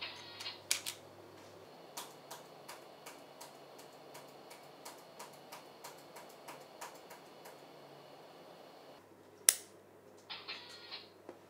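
A run of light, evenly spaced clicks, about three a second for several seconds, then one sharp, louder click and a short rustle near the end.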